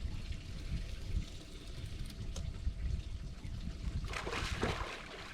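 Water splashing and trickling over a low rumble, with a louder rush of splashing about four seconds in.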